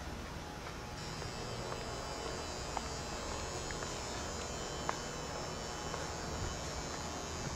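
Steady electrical hum and room noise of an empty indoor ice arena. A thin high whine joins about a second in, and there are a few faint small clicks.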